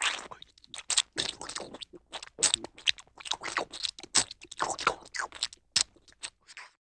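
Baby macaque chewing crunchy food with its mouth open, giving irregular crunches a few times a second.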